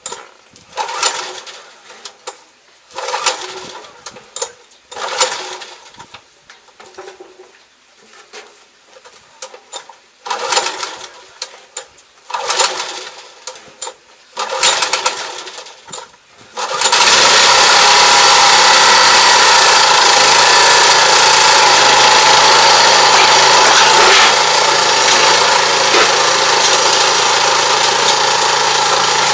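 Small engine on a crawler-type pesticide sprayer being pull-started: several short cord pulls over about sixteen seconds, then it catches and runs steadily at a loud, even pitch.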